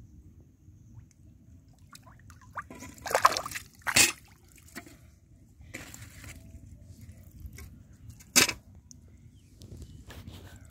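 Hands splashing and sloshing in a shallow muddy puddle while groping for fish, in several short bursts, the loudest about three, four and eight seconds in.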